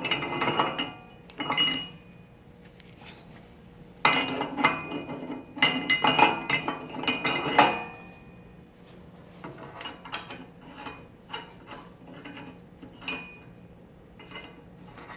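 Hard metal parts clinking, tapping and rubbing against each other as they are handled, in busy clusters that are loudest about four to eight seconds in, then thinning to scattered taps. A faint steady hum runs underneath.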